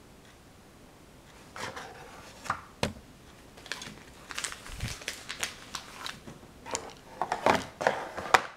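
Close-up handling noises: an irregular run of crinkling, rustling and sharp little clicks and taps. They start about a second and a half in, come thickest near the end and stop abruptly.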